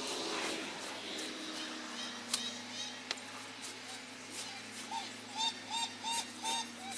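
Cattle mooing in sped-up audio, so the calls sound like geese: a run of short calls, about two or three a second, from about five seconds in, with fainter calls earlier. A sharp click comes at about two seconds and another at about three seconds.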